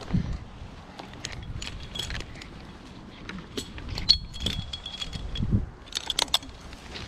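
Metal climbing hardware clinking and jangling: scattered sharp clinks, a short metallic ring about four seconds in, and a quick flurry of clinks near the end.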